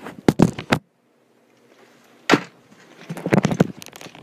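Handling clatter: sharp clicks and knocks of hard objects being moved, in a quick cluster that cuts off into a dead-quiet gap of about a second, then a single knock, then a rapid run of clicks near the end.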